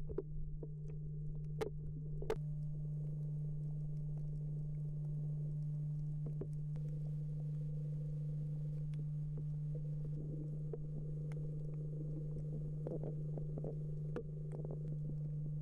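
Underwater ambience heard through an underwater camera: a steady low hum with a deep rumble beneath it and scattered faint sharp clicks, the loudest two about two seconds in.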